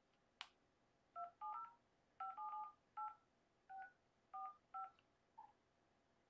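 Touch-tone phone keypad dialing a phone number: about ten short two-tone DTMF beeps in quick, uneven succession, with a single click just before them.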